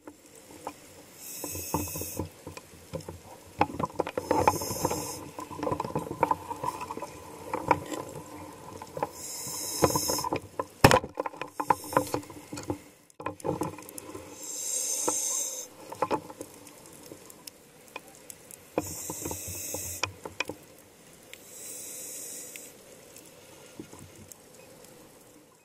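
Underwater sound of a scuba diver breathing through a regulator: a hiss of about a second, repeating every three to five seconds, over a steady crackle of small clicks. One sharp crack about eleven seconds in.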